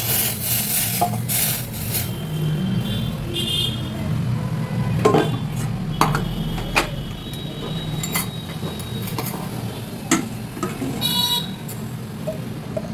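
Steel kitchen utensils clinking and scraping against a pot and strainer as hot kadha is strained, in scattered knocks with brief metallic ringing. A steady low hum runs underneath.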